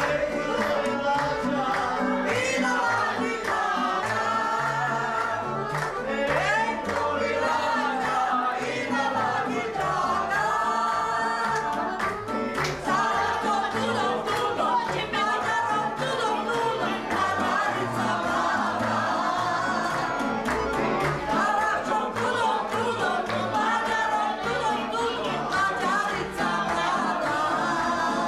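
A group of voices singing together, loud and continuous, over a live folk band of accordion and double bass keeping a steady beat.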